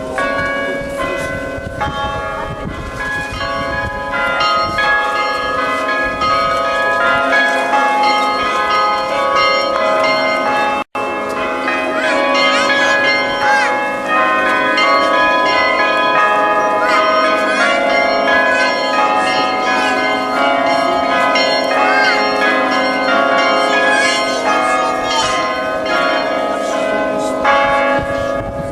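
Orthodox church belfry bells rung together in a festive Easter peal: many bells of different pitches sounding at once and overlapping continuously. The sound cuts out for an instant about eleven seconds in.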